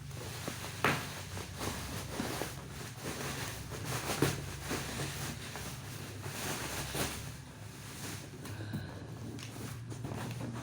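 Cardboard and plastic packaging being handled while unpacking a PS5 console: irregular rustling and small knocks, with a sharper tap about a second in and another about four seconds in, over a steady low hum.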